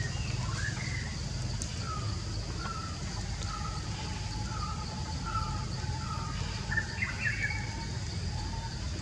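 A bird calling: a run of short, falling whistled notes roughly every half second, then a brief burst of higher chirps near the end, over a steady low rumble.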